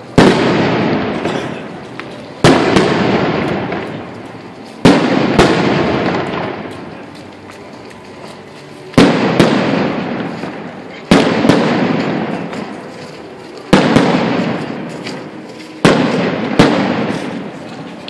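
Aerial fireworks shells bursting overhead: loud sharp bangs every couple of seconds, several coming in quick pairs, each followed by a long fading rumble.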